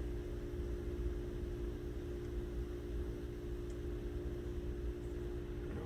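Steady electrical hum with a faint even hiss underneath, unchanging and with no distinct events.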